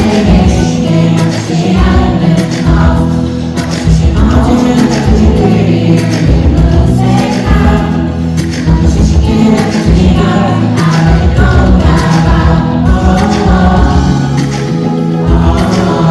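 Live pop music from a concert stage: singing over a band with a steady low beat, loud and continuous.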